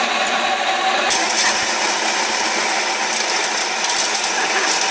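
Small solar-battery-powered electric corn mill running steadily, grinding dried corn kernels fed by hand into its hopper.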